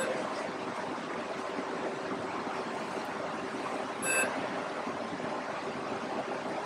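Steady room noise, an even hiss with a faint hum, and a brief light click about four seconds in.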